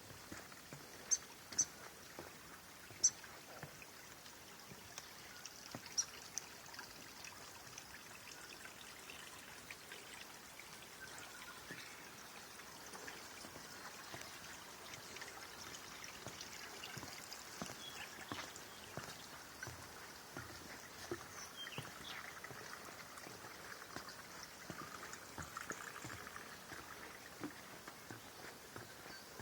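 Small rainforest stream trickling steadily, with a few sharp high chirps in the first six seconds and fainter calls later on.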